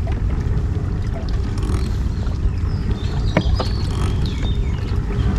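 Pedal-drive kayak under way: a steady low rumble of wind on the microphone and water moving past the boat, with a few short high chirps and a brief click or two about three and a half seconds in.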